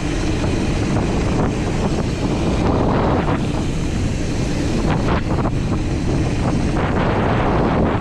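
Wind buffeting the microphone of a mountain biker's camera, over the rolling rumble of knobby tyres on a dirt trail, with a few brief rattles and knocks from the bike over bumps.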